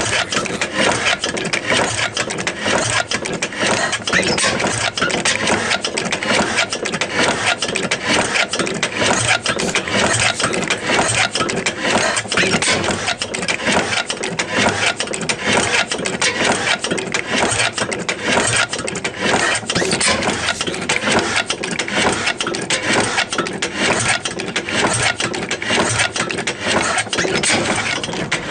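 Old steam engine running steadily with a rapid, even beat.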